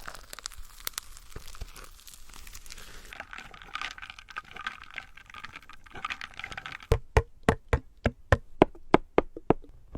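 Light crinkling and scratching with scattered small clicks, then, about seven seconds in, a quick run of about fourteen crisp, slightly ringing taps at roughly five a second: ASMR tapping on a Toshiba refrigerator.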